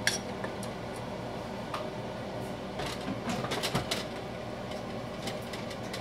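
Light clicks and taps of bamboo skewers and a pastry brush against a saucepan and a metal baking tray while the skewered balls are glazed, with a cluster of taps a few seconds in, over a steady low hum.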